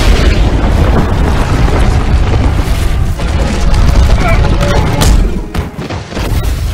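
Action-film sound effects: a heavy booming rumble with crashing impacts, a sharp hit about five seconds in, under an orchestral score.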